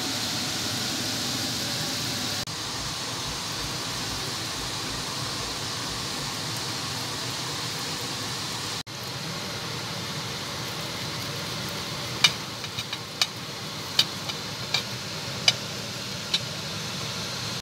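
A steady hiss, then in the last third about eight sharp, short clinks of a metal knife and fork against a plate as grilled chicken is cut.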